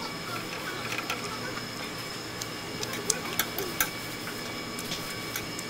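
Metal chopsticks clicking and scraping against a pan of tteokbokki: scattered sharp taps, the loudest a few seconds in, over a steady background hum.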